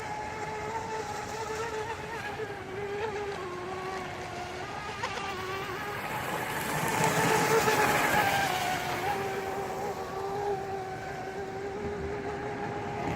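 Pro Boat UL-19 RC racing boat's brushless electric motor whining steadily at speed on 6S, rising in pitch and loudness as the boat passes closest about halfway through, with water rushing under the hull, then falling back as it heads away.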